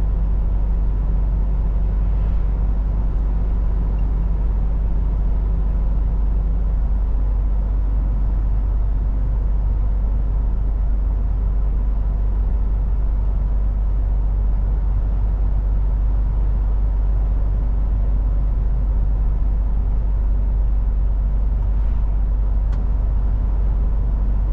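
MAN TGX semi truck's diesel engine and tyre/road noise while driving, a steady low drone. The engine's pitched hum above the rumble drops away about seven seconds in.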